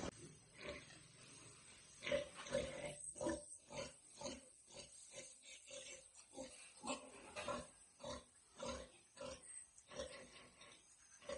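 Pigs making a rapid series of short, fairly quiet grunts and squeals, a few a second.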